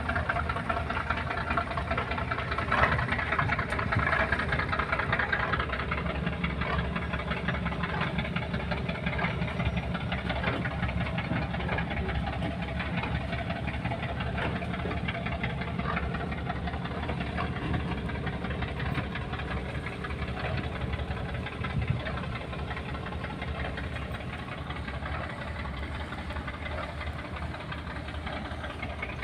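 Boat's diesel engine running steadily: a low, even rumble with a fast knock.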